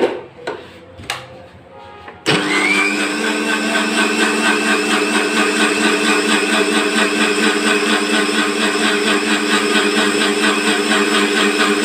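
A few light knocks. Then, a little over two seconds in, an electric mixer grinder starts abruptly and runs steadily at high speed, blending water and shake powder in its jar.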